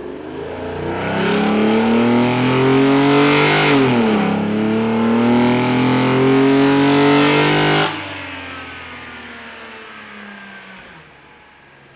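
Mercedes SL600's V12 at full throttle on a chassis dynamometer with the air filter removed, so the intake is loud: the revs climb, drop sharply about four seconds in, climb again, then the throttle shuts abruptly near eight seconds and the engine winds down.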